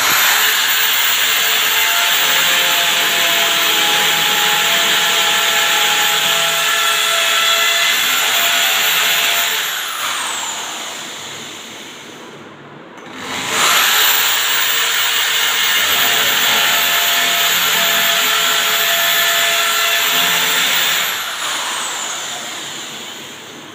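Corded electric drill boring two holes into a wall: two runs of about eight seconds each, the motor running steadily with a high whine, and after each one it winds down with a falling pitch.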